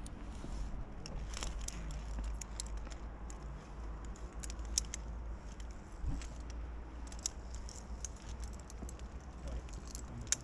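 Scattered light metallic clicks and clinks of via ferrata climbing gear, carabiners and lanyards knocking on the rock and the steel safety cable, over a low steady rumble.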